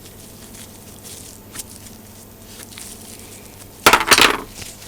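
Faint handling of greasy rotator parts on a workbench, then about four seconds in a short loud clatter of a few quick knocks as parts are moved or set down.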